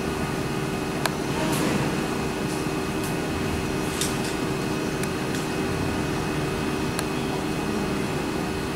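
Steady hum of jet airliner engines, with a few faint sharp clicks.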